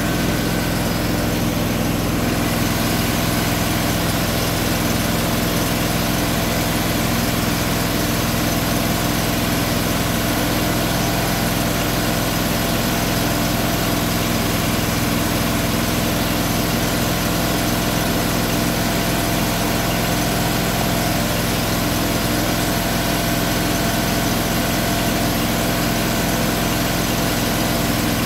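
An engine idling steadily at an unchanging speed.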